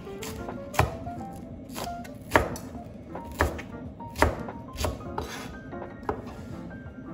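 Chef's knife chopping a Japanese long green onion on a plastic cutting board: about eight separate, unevenly spaced strikes of the blade against the board, the loudest a little over two and four seconds in. Quiet background music with a light melody runs underneath.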